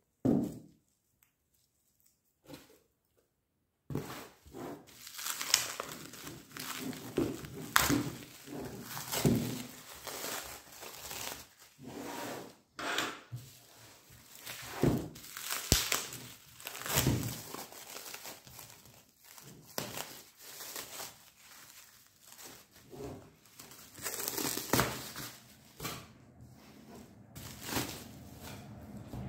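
Clear plastic wrap around a stack of manga volumes being crinkled and pulled off by hand: dense, irregular crackling with sharp rustles. The first few seconds are almost silent apart from a single knock near the start.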